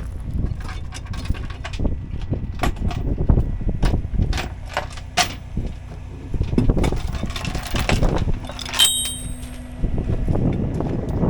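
6x6 off-road rollback tow truck driving over rough ground, with many clanks and rattles over a low rumble. There is a brief high squeak about two-thirds of the way through.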